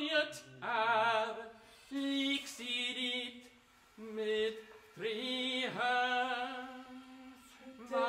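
Baritone voice singing a string of held notes with a wide vibrato, separated by short breaks.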